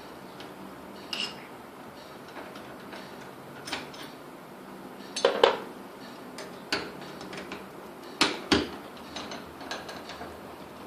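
Screwdriver working a screw out of a door knob: scattered metallic clicks and clinks, loudest as two quick pairs about five and eight seconds in.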